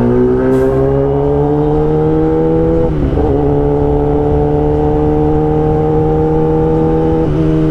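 Kawasaki ZX-10R's inline-four engine pulling up through the revs with a slowly rising pitch, broken by two quick upshifts, one about three seconds in and one near the end.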